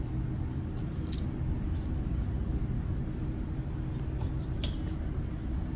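Steady low rumble of background noise, with a few light clicks as small repair parts and a mold are handled on the bench: one about a second in, and two close together a little past four seconds.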